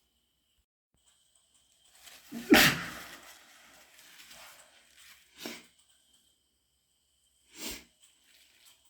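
A person's wet sneeze about two and a half seconds in, the loudest sound, with a short build-up before it and a trailing tail. Two short sniffles follow, from a nose running after irritation by a nasal spray.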